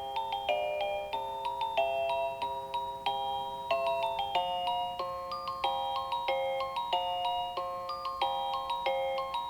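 Seiko NR435P quartz alarm clock sounding one of its built-in melody alarms: an electronic, bell-like tune played in several parts at once, with the notes changing a few times a second.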